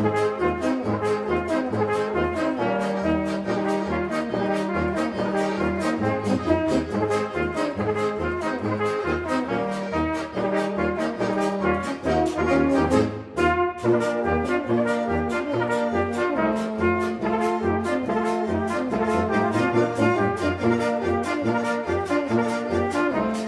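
Brass band music with a steady beat, trombones and trumpets playing held notes, with a short break about halfway through.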